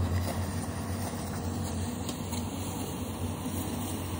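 Low-lying fog machine running: a steady low mechanical hum with an even hiss as it pushes fog out through its hose.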